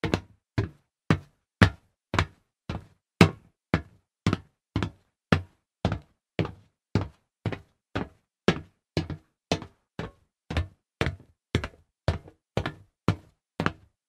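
Footsteps walking on solid metal at a steady pace, about two steps a second, each a short, sharp hit that dies away quickly.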